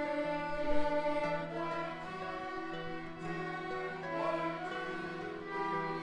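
Music with bowed violins playing sustained notes over a steady low held note.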